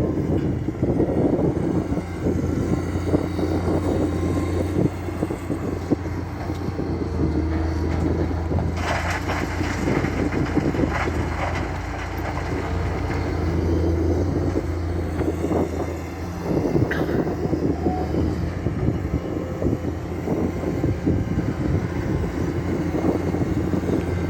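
Komatsu excavator's diesel engine running steadily under work, with a few seconds of clattering and knocking about nine seconds in and a sharp click later on.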